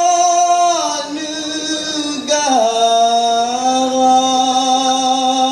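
A male lead singer of a dikir barat troupe sings a solo line through a microphone in long, ornamented held notes. The pitch slides down about a second in and again about two and a half seconds in, then settles into one long steady note.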